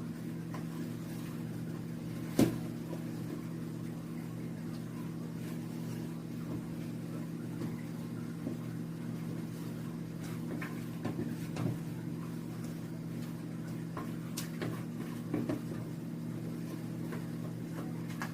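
Blender motor running steadily as it mixes thick bread batter, a constant hum, with a sharp knock about two and a half seconds in and a few light clicks later.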